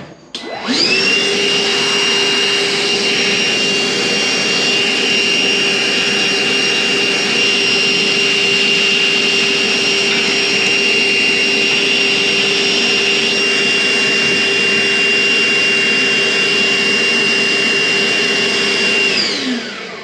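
Canister vacuum switched on, rising to a steady running whine, with its hose held at a radiator valve to suck up the water as the valve is undone. Near the end it is switched off and winds down.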